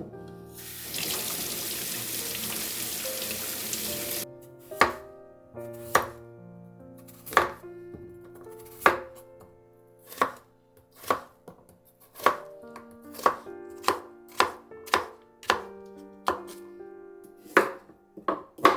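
Water running for about three seconds, then a knife chopping on a cutting board: single cuts about a second apart, coming quicker near the end.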